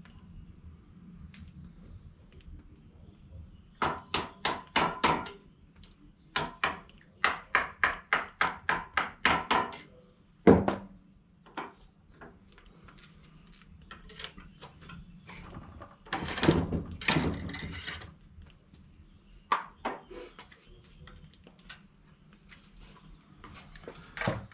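Quick runs of sharp knocks and taps, about three to five a second, from a muzzleloading rifle being loaded and handled at a shooting bench. One heavier thud comes about ten seconds in, with another cluster of knocking later on and a single knock near the end.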